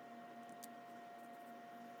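Faint room tone: a steady electrical hum with a light hiss, and a few soft, faint clicks such as small tools or parts being handled.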